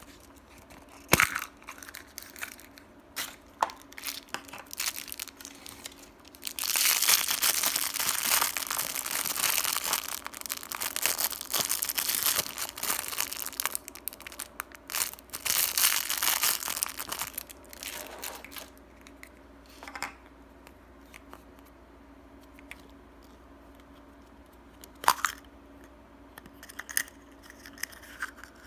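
Crinkling and tearing of a thin cellophane candy wrapper holding small candy-coated chocolates, handled for about ten seconds in the middle. Sharp clicks of a plastic surprise-egg capsule snapping open come about a second in, with a few more plastic clicks later on.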